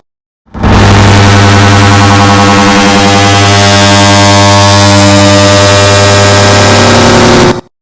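Air-conditioner start-up sound layered on itself many times into a loud, distorted drone with a strong low hum and a hiss over it. It starts abruptly after a moment of silence and cuts off suddenly near the end, as one turn of a repeating loop.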